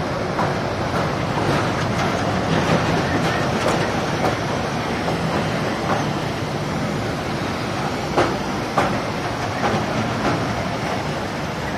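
Kangra Valley Railway narrow-gauge train running, heard from an open coach doorway: a steady rumble and rattle of the coach with irregular sharp clicks and knocks from the wheels on the track.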